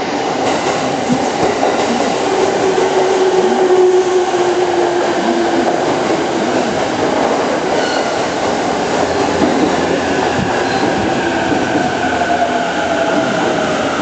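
Narita Express electric train pulling into the platform: steady rumble of wheels on rail, with a motor whine that slowly falls in pitch as the train slows.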